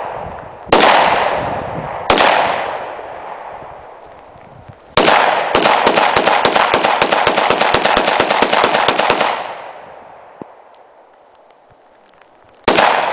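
Glock pistol firing: two single shots a little over a second apart, each fading out over a second or more, then after a pause a fast string of shots at about five or six a second for around four seconds. Another single shot comes near the end.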